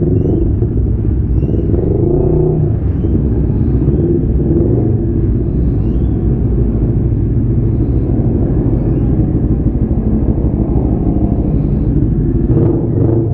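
Motorcycle on the move: a steady low rumble of engine and wind with no let-up, swelling slightly near the end.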